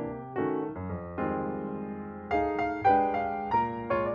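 Background piano music: chords struck in turn, each note fading after it is played.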